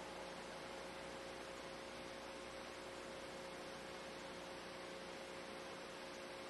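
Faint steady hum with a thin held tone under an even hiss, unchanging throughout.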